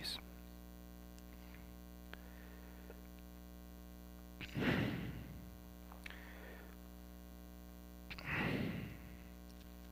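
Bible pages being leafed through, with two louder paper rustles about four and a half and eight seconds in and a few faint ticks, over a steady electrical hum.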